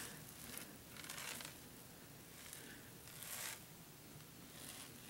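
Water and black sand sloshing faintly in a plastic gold pan as it is tilted and shaken, a few soft swishes.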